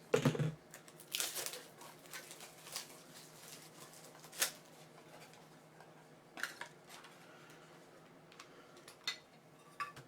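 Trading cards and hard plastic card holders being handled on a table: a knock at the start, a brief sliding rustle about a second in, then scattered sharp plastic clicks and taps.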